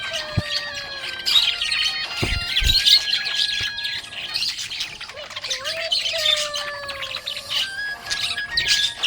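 Budgerigar chirping and warbling without a break: fast, high chatter mixed with squawks and longer whistled notes that slide in pitch.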